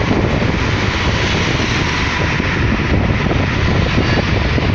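Steady rumble of airliner engines.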